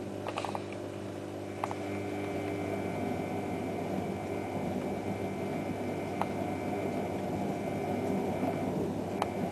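Privileg Ergonomic 1600 S front-loading washing machine running, a steady motor hum and drum rumble with a few light clicks. The machine's drum bearings are badly worn.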